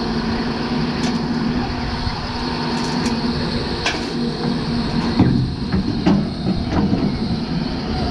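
Doosan DX225LCA excavator's diesel engine running steadily while the machine digs, with scattered knocks and clanks from the digging, the loudest about five seconds in.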